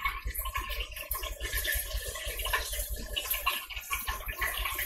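Buttermilk-battered chicken frying in hot oil inside a lidded electric deep fryer: a steady, crackling sizzle.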